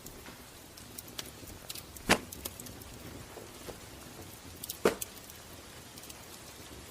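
Sparse crackling and ticking over a soft steady hiss, with two loud, sharp cracks about two and five seconds in.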